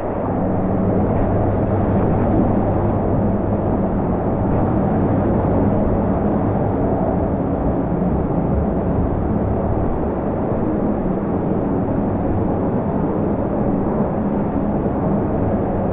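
Steady rush of water in an indoor water park, with a low, even hum underneath.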